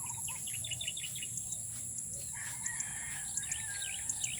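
A rooster crowing once, a long drawn-out call starting a little past two seconds in, with a short run of bird chirps near the start over a steady high-pitched insect buzz.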